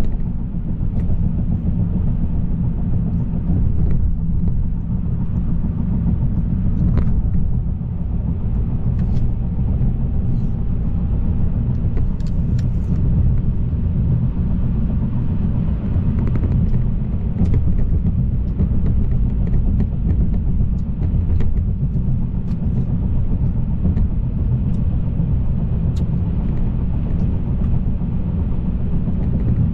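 Steady low rumble of a Citroën car being driven, heard from inside the cabin: engine and tyre noise on the road, with a few faint clicks here and there.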